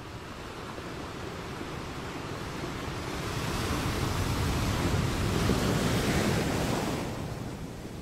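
Ocean surf: the rushing wash of a wave that swells over several seconds, then falls away sharply about seven seconds in.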